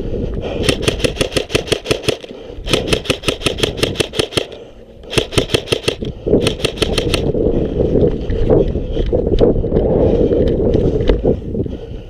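Airsoft electric rifle, an ICS CXP MARS SBR, firing four full-auto bursts of rapid, evenly spaced shots in the first seven seconds, followed by a steady muffled noise with scattered clicks.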